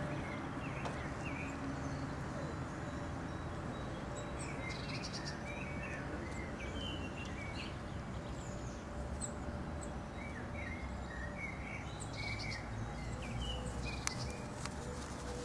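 Many short, high chirps scattered over a steady background noise, with a few sharp clicks near the end.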